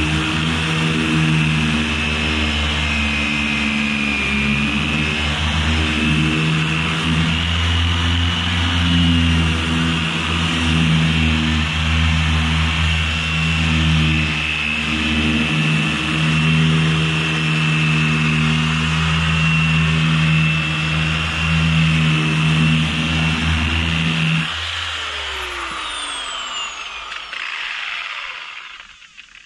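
Random orbital sander running steadily against a fiberglass boat hull, then switched off about three-quarters of the way through, its pitch falling as it spins down to a stop.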